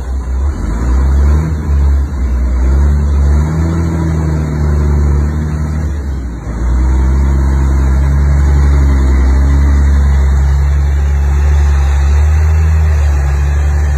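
Bus engine running with a deep, steady drone as the bus drives slowly, a little louder from about six and a half seconds in.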